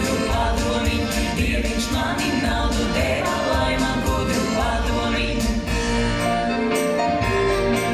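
Latvian folk dance music with group singing over instruments and a steady beat.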